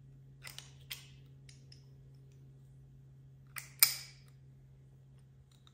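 Tools being handled on a shop bench: a few sharp clicks and clinks, the loudest near four seconds in with a short ring, over a steady low hum.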